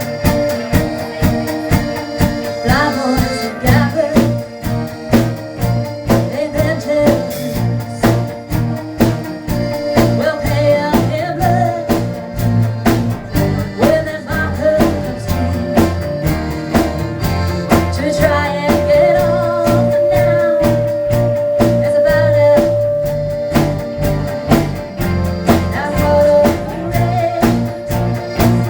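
Live band playing a country-rock song: an even drum beat and walking bass under guitars, with a lead melody that holds one long note a little past the middle.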